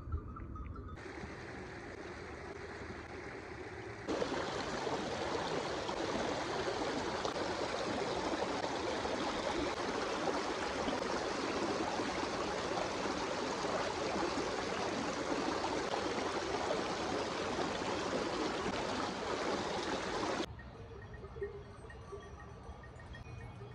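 Running water of a river flowing, a steady rushing. It grows abruptly louder about four seconds in and drops back suddenly near the end.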